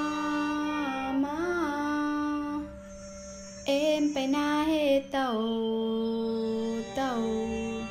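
Slow song melody of long held notes that bend and slide in pitch, over a steady low drone, with a brief lull about three seconds in.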